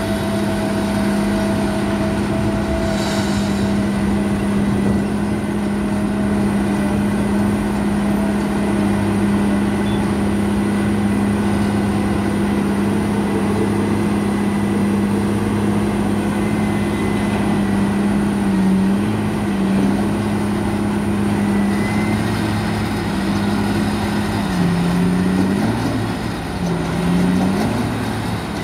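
Heavy diesel machinery of a stone-piling rig running steadily with a strong, even hum. Its pitch dips briefly a few times in the last third, as if taking load.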